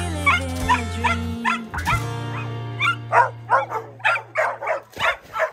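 A dog yipping and then barking repeatedly, about two barks a second in the second half, over background music with held low notes.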